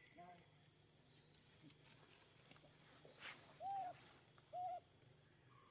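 Infant macaque giving two short coo calls, each rising then falling in pitch, about a second apart past the middle, with a fainter call right at the start. A steady high insect buzz runs underneath.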